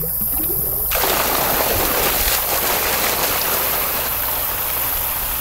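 Well water bursting out of a metal elbow discharge pipe about a second in, then gushing steadily into the canal water. It is a weak stream: the well's flow, about 500 gallons per minute, is now split between two outlets and cut roughly in half.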